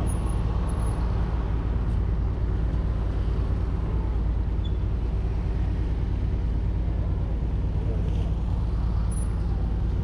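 A steady, low engine rumble, like a motor vehicle running at idle.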